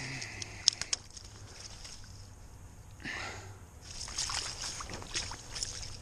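Slushy water sloshing and splashing in a hole in the ice as a small northern pike is slipped back down it, growing busier in the last couple of seconds.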